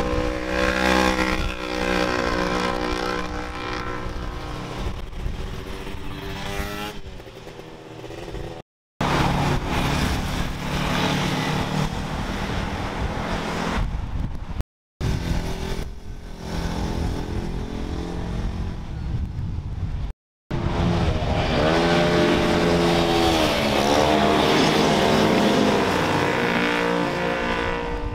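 Engines of sport vehicles passing through a corner, revving with pitch that rises and falls, in four short clips separated by brief silent cuts.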